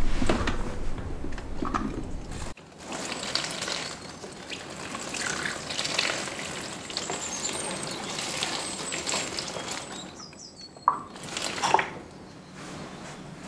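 Water pouring from a plastic watering can onto a potted plant's leaves and into its soil: a steady splashing trickle.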